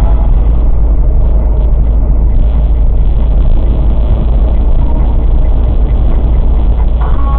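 Steady low rumble of a car driving at speed on an open road: engine and tyre noise heard from inside the cabin.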